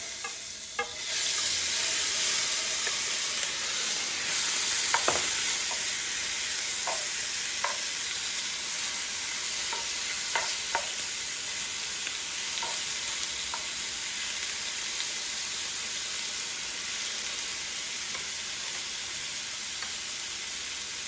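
Seasoned shrimp frying in a hot oiled pot: a steady sizzle that jumps up about a second in as they hit the oil, with a few short clicks scattered through it.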